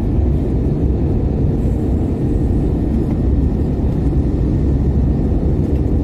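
Steady engine and airflow rumble inside the cabin of an Airbus A321neo airliner in flight, deep and even, with a faint steady hum riding on it.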